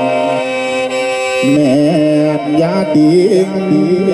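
Lam klon music: a khaen (bamboo mouth organ) sounds a held chord over a drone. About a second and a half in, a voice comes in with a sliding, wavering melismatic line over the continuing drone.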